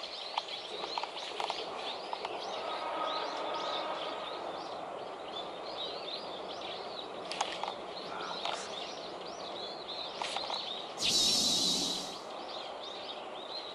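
Many small birds chirping and chattering, short calls overlapping one another, over a steady outdoor hiss. About eleven seconds in, a louder rasping sound lasts about a second.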